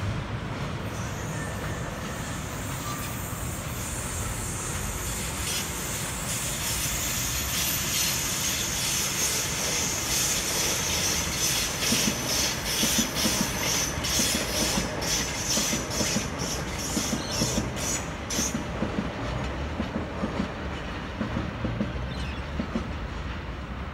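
Sydney electric double-deck trains, one a Waratah, running over the junction's points and rail joints. The wheels clatter in a rapid, regular rhythm over a high wheel squeal, and the clatter stops abruptly about three-quarters of the way through, leaving a low rumble.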